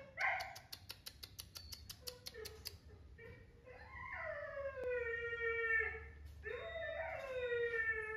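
A quick run of sharp clicks, about five a second, then two long drawn-out animal calls, each about two seconds, rising briefly and then sliding slowly down in pitch.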